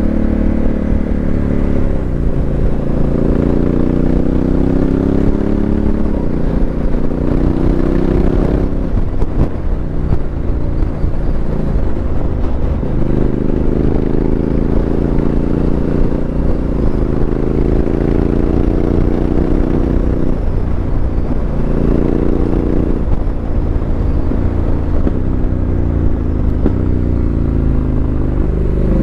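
Honda CRF1100L Africa Twin's parallel-twin engine through an aftermarket Fuel exhaust, heard from a helmet microphone while riding. The revs climb and drop back again and again as the bike pulls through the gears, with wind noise underneath.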